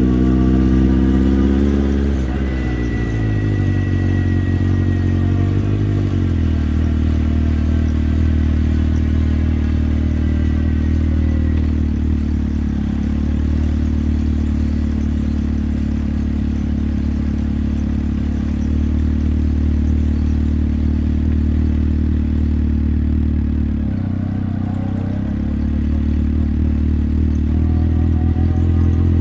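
Motorcycle engine heard from the rider's seat, its pitch falling over the first several seconds as the revs drop. It then runs steadily at low revs, dips briefly, and begins to rev up again near the end.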